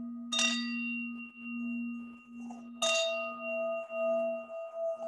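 Singing bowl ringing in a steady, gently wavering hum, struck twice, about half a second in and again near three seconds in. Each strike adds bright ringing overtones that slowly fade.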